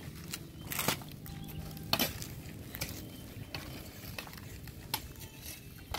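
Dry wood cracking and knocking as a long branch is handled over a brush pile: a few sharp cracks, the loudest about a second in, at two seconds and near the end, with lighter crackling and rustling of dry leaves between them.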